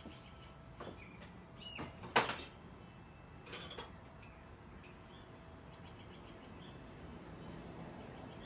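Metal toolbox drawers sliding and wrenches clanking as someone rummages through a tool chest: a handful of sharp clanks in the first five seconds, the loudest about two seconds in. Birds chirp faintly in the background.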